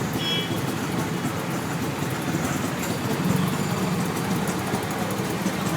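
Road traffic with a steady run of vehicle engines and road noise, and a brief high-pitched beep at the start.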